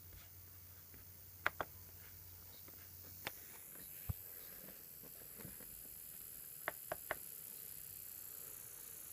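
Short, sharp clicks from a laptop over a faint steady hiss. There are two close together, then a single click, then a duller knock, then three in quick succession.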